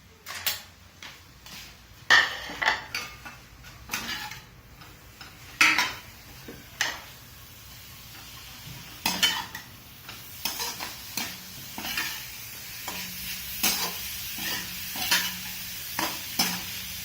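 A cooking utensil stirring and knocking against a pan as idli pieces are tossed with sautéed vegetables, in irregular clatters, over a frying sizzle that grows louder in the second half.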